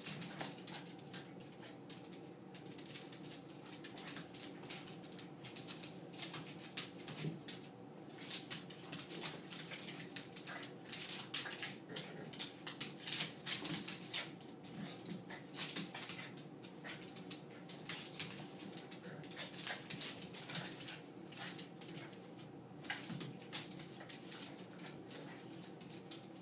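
Two small dogs play-fighting on a hardwood floor: quick irregular clicks and scuffles of claws and paws on the boards, busiest about halfway through.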